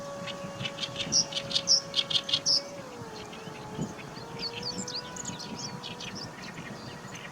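Great reed warbler singing its harsh, chattering song of quick, grating notes: a loud phrase near the start, then a softer one after a short pause.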